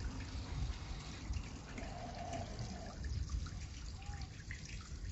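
Water trickling steadily, low and even.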